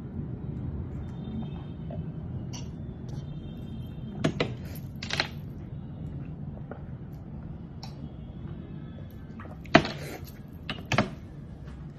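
Glass goblets handled on a table and juice drunk from them: a few short knocks and sips, about four in all, two of them in quick pairs, over a low steady room hum.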